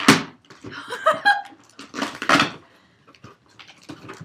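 Cardboard shipping box being opened: packing tape and cardboard ripping in a few short, loud tears, with handling noise between them.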